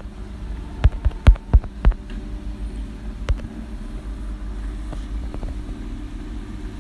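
Sharp clicks of typing on an iPhone's on-screen keyboard: four quick ones about a second in, then a single click a little later, over a steady low background rumble.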